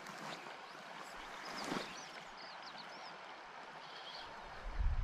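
Steady rush of a shallow river riffle, with a few short high chirps from a small bird about halfway through. Near the end, wind starts buffeting the microphone with a low rumble.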